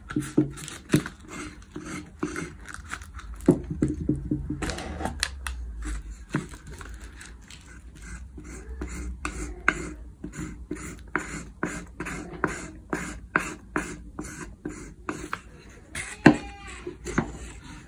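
A knife blade scraping and pressing a sawdust-and-white-glue filler into cracks in carved wood: a series of short scrapes and clicks, fairly regular at about two to three a second through the middle stretch.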